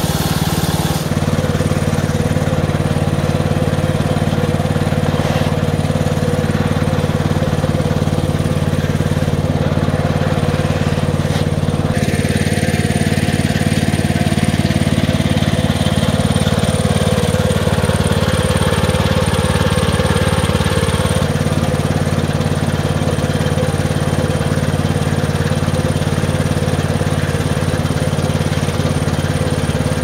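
Homemade portable log bandsaw mill running steadily with a constant low engine note; its tone shifts slightly a few times.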